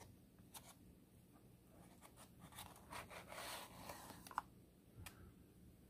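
Faint rustling and scraping of paper and cardboard as fingers dig into a small box of stickers, with a few light clicks and taps scattered through.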